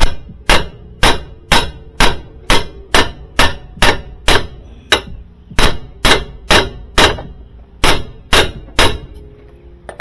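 Ball-peen hammer striking the steel lower control arm at its ball joint on a Suzuki Carry kei truck's front suspension, driving the joint loose to separate it. About twenty sharp metal blows come at roughly two a second and stop shortly before the end.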